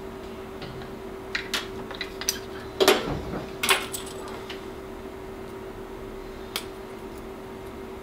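Stainless steel cam-lock fittings and a wire hook clinking against each other and the steel bench while O-rings are picked out of the fittings. There are several short, scattered clinks, the loudest about three seconds in, over a steady low hum.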